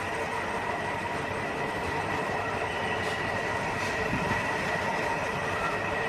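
Steady mechanical running noise with a constant hum and no clear separate events.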